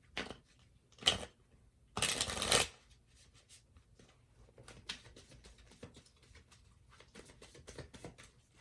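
Tarot cards being shuffled: two quick swishes, then a longer, louder one about two seconds in, followed by light ticking and rustling as the cards are handled.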